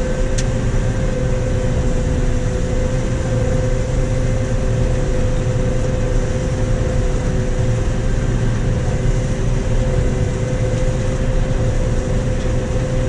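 1998 John Deere 9510 combine running steadily while harvesting soybeans, heard from inside the cab. It is a constant low drone with a steady mid-pitched whine over it.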